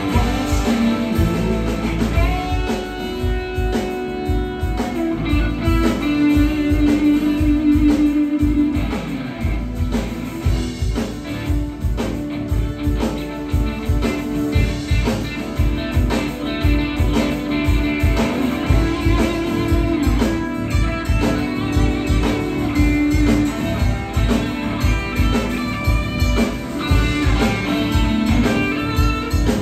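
Live band playing an instrumental passage: electric bass and a drum kit keep a steady beat under a lead line of long held, wavering notes.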